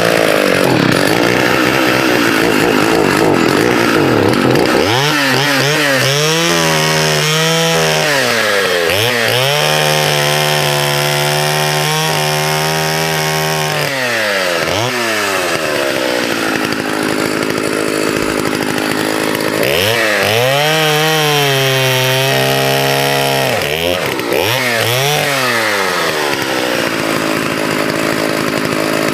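Vintage 1979 Partner S-55 two-stroke chainsaw bucking a rotten tree trunk, held at high revs through several cuts. Its pitch dips and climbs back between cuts. The soft, rotten wood lets it slice through easily.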